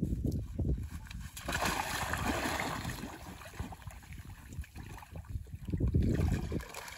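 A person going into a shallow pool and wading waist-deep, with water splashing and sloshing around him; the loudest splashing comes a second and a half to three seconds in.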